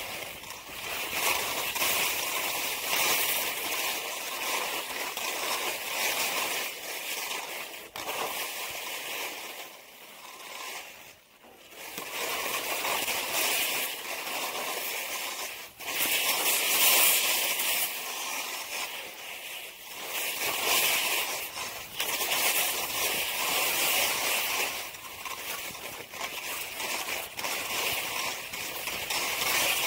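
Skis sliding and scraping over snow during a downhill run: a rushing noise that swells and fades through the turns and drops away briefly about eleven seconds in.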